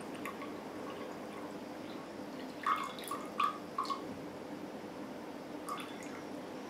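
Water dripping slowly from a plastic bottle into a glass mug. A quick run of four drops plinks into the water about two and a half seconds in, and one more comes near the end.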